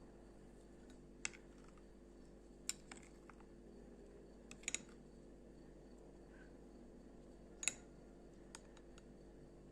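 Near silence with about seven faint, sharp clicks scattered at uneven intervals, two of them close together a little before the middle.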